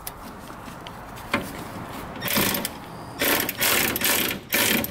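Hand ratchet wrench clicking in four short runs as it is swung back and forth, tightening a bolt on a pickup's air shock mount, with a single sharp knock about a second and a half in.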